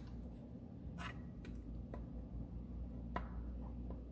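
A few light clicks and taps, about a second apart, of small plastic dollhouse pieces being handled and set down on a toy table, over a low steady hum.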